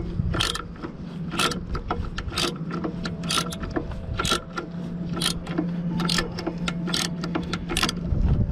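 Ratchet wrench clicking in short bursts about once a second as it turns a bolt, drawing a new idler arm bushing into its bracket on a Mercedes 190E, with a steady low hum underneath.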